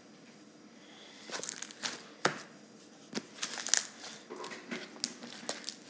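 Homemade glue-and-borax slime being squeezed and pulled apart by hand, with irregular crackles and pops that start about a second in.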